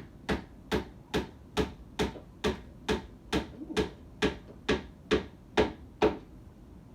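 Hammer blows striking in a steady rhythm, a little over two a second, about fourteen strikes, stopping about a second before the end.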